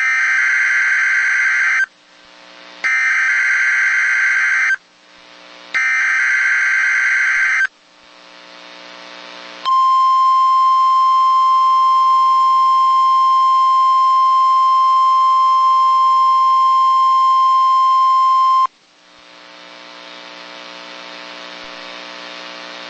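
Weather radio Emergency Alert System test signal: three bursts of SAME digital header tones, each about two seconds long with radio hiss between, then the steady 1050 Hz warning alarm tone for about nine seconds, which cuts off into hiss.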